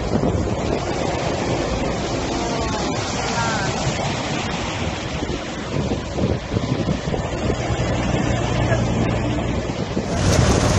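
Wind buffeting the microphone over the rumble of vehicles on a wet road, with a steady low engine hum in the second half.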